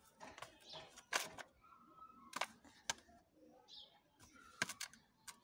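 Handling noise: a few sharp clicks and taps as a cardboard-tube paper doll is moved by hand, with faint short tones in between.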